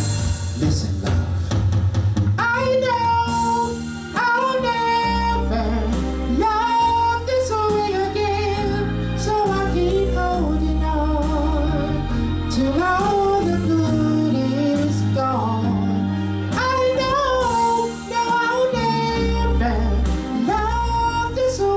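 Male vocalist singing a soul song into a microphone over backing music with a bass line.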